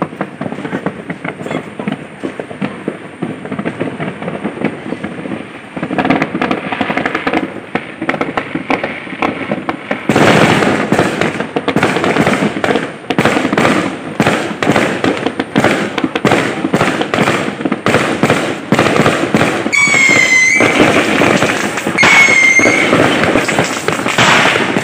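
New Year fireworks going off: a dense, continuous crackle of rapid pops that gets much louder about ten seconds in. Two short high whistles sound near the end.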